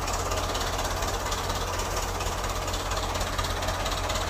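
Diesel engine of an old Kubota tractor with a front dozer blade running close by, a steady sound with a fast, even beat.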